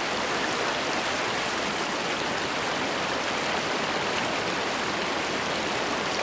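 A river rushing steadily, a continuous even wash of flowing water.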